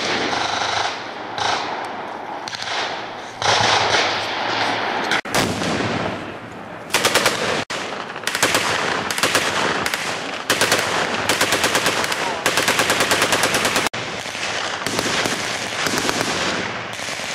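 Fully automatic machine guns firing on a range: rapid shots in long strings and shorter bursts, several guns overlapping.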